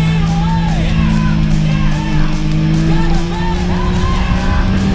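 Rock music with guitar, singing and a steady beat, over a low steady drone that rises slowly in pitch.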